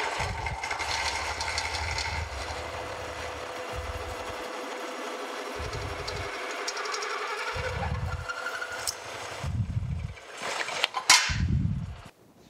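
Carlton radial drill cutting a hole through a sheet-metal panel with a 1-inch twist drill at slow speed: steady machine hum and cutting scrape with uneven low rumbles, and a loud sharp scrape a little before the end.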